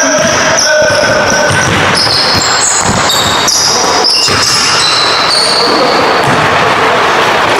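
A basketball bouncing on a hardwood gym floor with repeated thumps, mixed with the short high-pitched squeaks of sneakers on the court during play.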